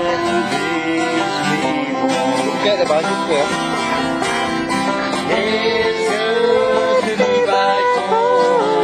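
Acoustic guitar and banjo playing a folk tune together.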